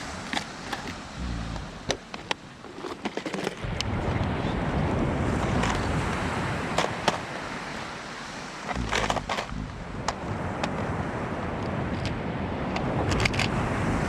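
Wind buffeting the microphone over a steady surf-like rush, with gusty low rumbles that come and go and many scattered sharp clicks and crackles.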